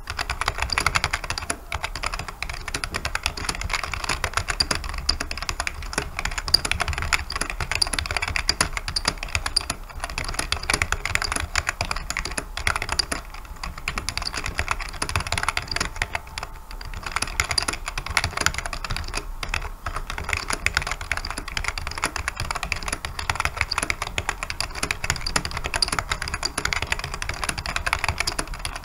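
Fast, continuous typing on a JEDEL K590 keyboard: a dense stream of key clicks, briefly thinning a few times.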